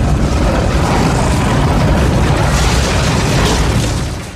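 Loud rumbling whoosh sound effect for an animated logo: a steady wash of noise with a heavy deep rumble, fading out near the end.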